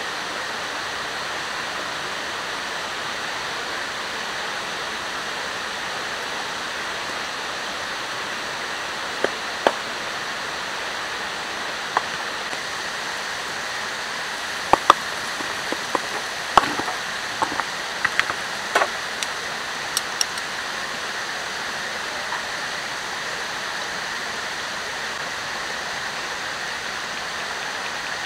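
Steady rushing water noise, from the river beside the camp or rain, with no let-up. Through the middle stretch a scatter of sharp clicks and clinks from metal cookware being handled over a small wood-burning camp stove.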